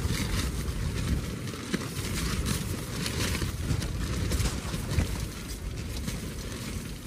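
Strong gusty wind rumbling on the microphone, rising and falling in gusts, with light irregular crackles that fit tent fabric moving in the wind.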